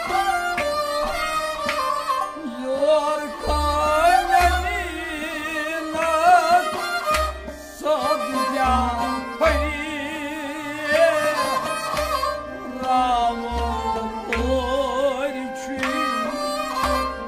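Kashmiri folk music: harmonium chords under a man's wavering, ornamented singing, with a bowed string instrument following the melody. A clay-pot drum (nout) beats low, repeated strokes.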